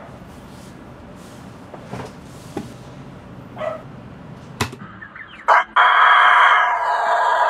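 Rooster crowing about five and a half seconds in: a short first note, then a long, loud held note. Before it, only faint room noise with a few small clicks.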